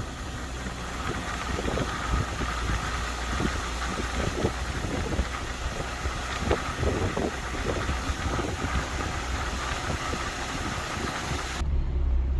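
Car driving on a snowy road: steady vehicle noise with a high hiss and scattered soft crackles, starting and stopping abruptly.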